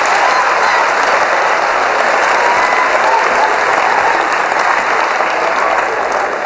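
Audience applauding steadily, tapering slightly near the end.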